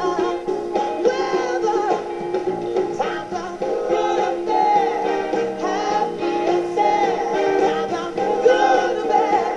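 A woman singing with a live band, a song heard through a phone microphone from among the audience.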